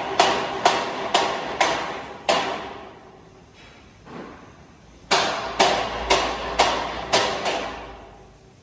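Hammer blows on a steel frame, about two a second, each ringing briefly. A run of strikes early on, a pause of nearly three seconds, then a second run before they stop.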